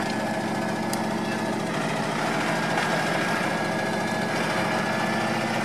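GAZ-66 truck's engine idling steadily, holding an even speed with no revving.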